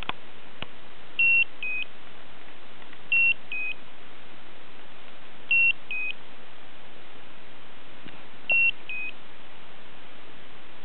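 Slendertone Men's Abs electric ab-toning belt beeping a two-note 'beep-bep', a higher short tone then a slightly lower one. It sounds four times at uneven gaps of two to three seconds, over a steady hiss. The beeps are not a low-battery, charging or pad-contact warning and are not silenced by the mute function; the owner suspects the pads may be too cold or dry.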